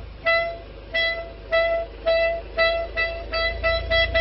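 A clarinet playing one short note over and over, the notes coming faster and faster, from about two a second to four or five a second. It imitates a car's parking-sensor warning beeps speeding up as the car reverses toward an obstacle.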